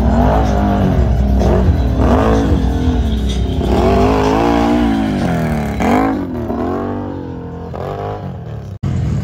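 Big-tire ATV engine revving hard and repeatedly, its pitch swooping up and down every second or so as the throttle is blipped and held while the machine climbs through obstacles. It drops out for an instant near the end.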